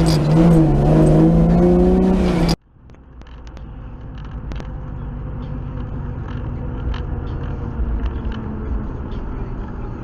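A car's road and engine noise heard from inside the cabin by a dashcam: a steady low rumble that grows slowly louder, with a few faint ticks. It follows an abrupt cut from a louder droning sound whose pitch wavers.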